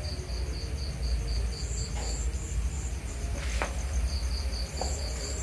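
Crickets chirping steadily in an even rhythm of about five short high chirps a second, over a low rumble, with a couple of faint knocks.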